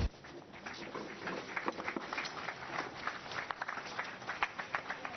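Quick, irregular footsteps of a person walking or running on a hard floor, with scattered clicks and knocks.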